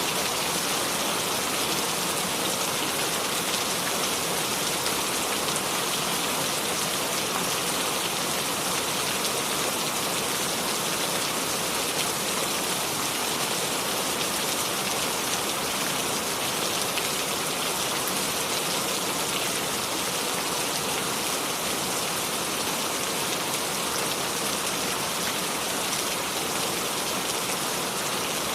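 Steady rain falling, with no thunder.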